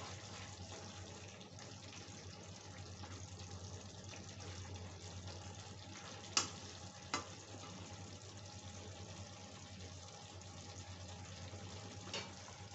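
Okra and onions frying with a faint steady sizzle in a kadai, stirred with a metal spatula that knocks sharply against the pan twice a little past the middle and once more near the end.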